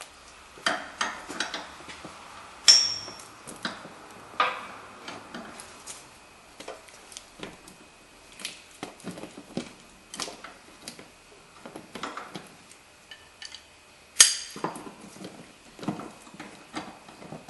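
Hand ratchet on a long extension working the nuts on top of a car's upper ball joint: irregular metallic clicks and clinks of the tool, with two sharper ringing metal clanks, one about three seconds in and one near the end.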